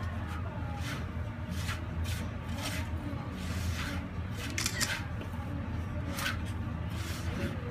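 Bare hands rubbing and squeezing a dry desiccated-coconut sambol mixture in a terracotta bowl: short gritty rustles about once a second.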